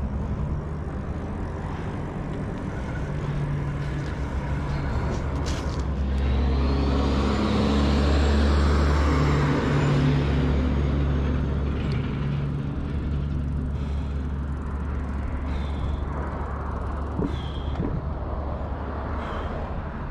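Road traffic on a multi-lane street: engines and tyres running steadily, with a heavy diesel truck swelling louder as it passes from about six to ten seconds in. Three short high chirps come in the last few seconds.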